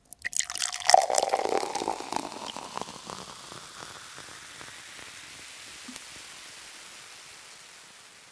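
Title sound effect: a clattering flurry of sharp clicks peaking about a second in, trailing off into a long hiss that slowly fades away.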